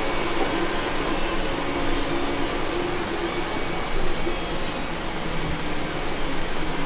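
Steady whirring hum of running machinery, even throughout with a faint low drone.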